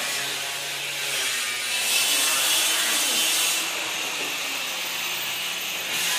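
Steady noise of wood being worked by a machine in a furniture workshop, without separate strokes, louder from about two to three and a half seconds in.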